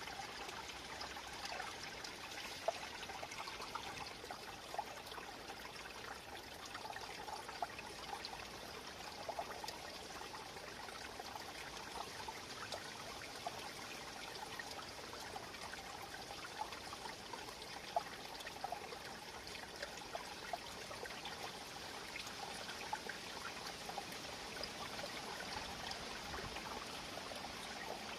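Small stream trickling and burbling steadily, with many small splashes and drips.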